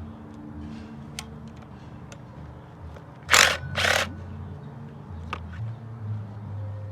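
Two short bursts from an impact wrench, about half a second apart a few seconds in, run on the small bolts of the VVT-i screen cover, over faint background music.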